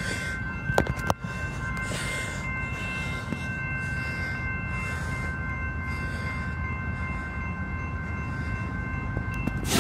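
Railroad grade-crossing warning bell ringing steadily, about once a second, over a low rumble; it stops near the end.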